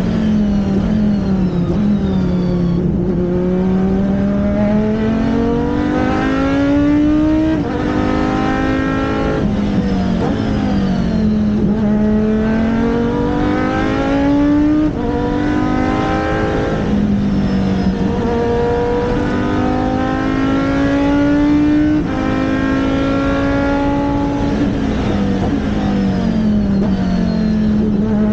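Racing engine of the Riley Daytona Prototype, a Dinan-built BMW V10, under hard acceleration. Its pitch climbs through each gear and drops sharply at every upshift, repeating every few seconds.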